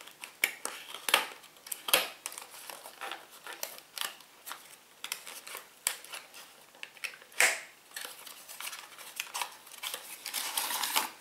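A liquid foundation bottle being taken out of its box by hand: scattered small clicks, taps and knocks of cardboard and bottle, with a rustle of packaging near the end.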